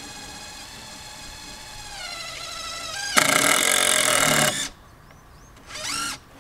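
Cordless drill driving a screw into a wooden post. The motor whines steadily, then turns much louder and harsher for about a second and a half as the screw drives home, and stops suddenly. A short burst of sound follows near the end.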